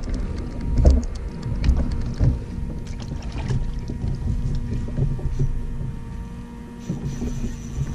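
Wind rumbling on the microphone and water lapping at a kayak's hull, with scattered small clicks and knocks.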